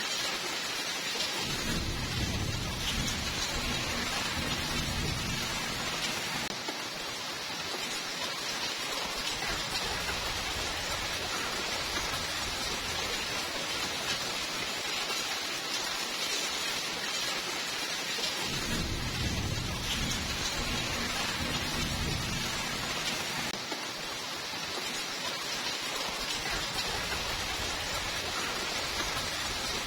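Steady rainfall, joined twice by a low rolling rumble of thunder, once near the start and once about two-thirds of the way through.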